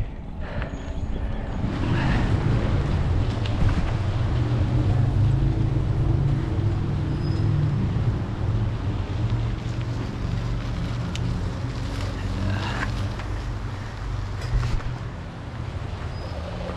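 Wind buffeting the microphone and mountain-bike tyres rolling over a dirt trail: a loud, steady low rumble, with a couple of sharp knocks from bumps in the second half.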